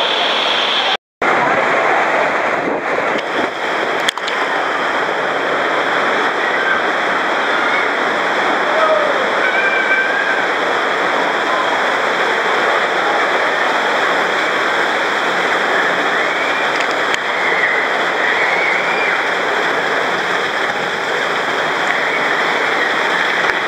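Water rushing and splashing steadily along a tube water slide as riders in inflatable rings go down it, with faint shouts over the noise. The sound cuts out briefly about a second in.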